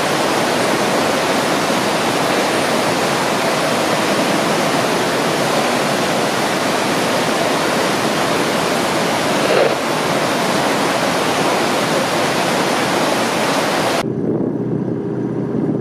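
Water rushing and churning into a lock as it floods, a loud steady rush of white water around a small moored boat. About fourteen seconds in it cuts off abruptly to a quieter, low steady hum of a boat's engine motoring.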